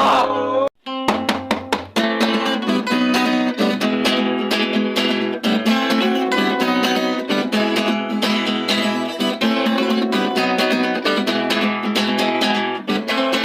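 Acoustic guitar music. The sound stops dead for a moment under a second in, then fast, steady strumming starts and runs on.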